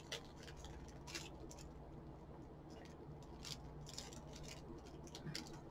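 Faint, scattered crinkling of a clear plastic snack-cake wrapper being opened and handled, in a few short bursts.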